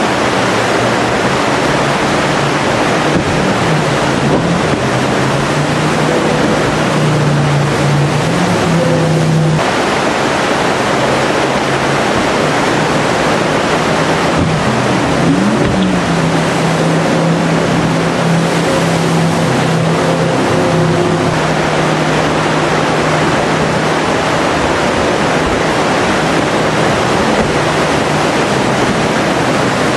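Whitewater rapids rushing loudly, with a jet boat's engine running underneath. The engine note rises and swells several times as the boat powers up through the rapid.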